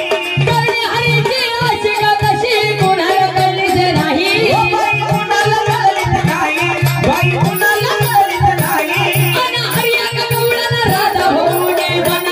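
A woman singing a Marathi gavlan folk song, with a steady drum beat of about two strokes a second and jingling rattles.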